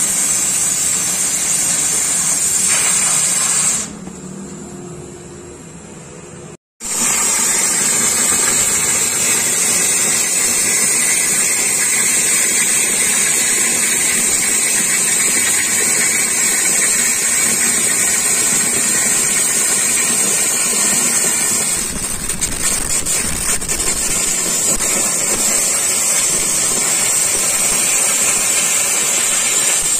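Oxy-fuel cutting torch on a CNC cutting machine hissing steadily as it cuts steel plate. The hiss drops lower for a couple of seconds about four seconds in, breaks off for a moment just before seven seconds, then runs steadily again.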